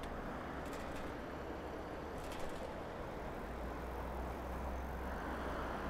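City street traffic heard from a moving bicycle: a steady wash of road and traffic noise, with a low engine rumble growing stronger about halfway through and a few faint clicks.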